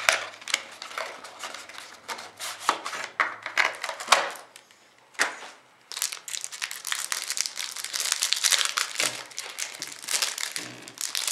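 A trading-card box being opened by hand with scattered clicks and rustles, then the wrapper of the pack of cards inside crinkling and tearing steadily from about six seconds in.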